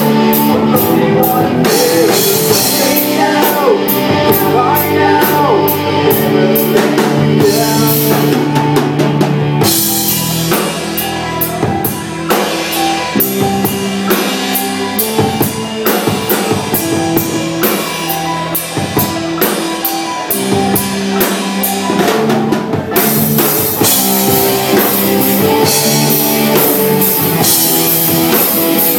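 Live rock band playing loudly: electric guitars, keyboard and drum kit. The drums and cymbals ease back for a stretch in the middle, then come in full again near the end.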